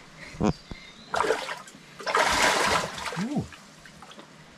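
Water splashing as a large snakehead fish is handled out of a trap: a short splash about a second in, then a louder one lasting most of a second. A couple of brief low thuds come before and after.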